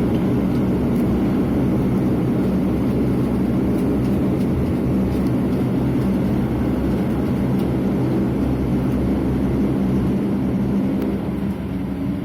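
Dash 8 Q400's Pratt & Whitney PW150A turboprop engines and propellers running after landing, heard from inside the cabin as a steady, loud drone with a low, even hum. It eases slightly near the end.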